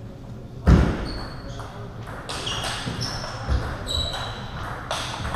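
Table tennis hall between points: celluloid balls knocking on tables and the wooden floor, a heavy thud about a second in that is the loudest sound, short high squeaks, and faint voices, all in a large echoing hall.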